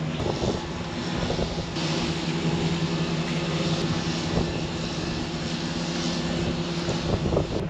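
Steady engine drone: a low, even humming note that holds level with no rise or fall.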